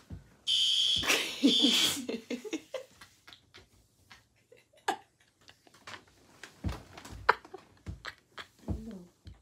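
A fire alarm sounds with a loud, piercing high beep for about a second and a half near the start, broken once briefly, and a voice cries out under its end. After it come stifled giggles, breaths and light knocks and rustles.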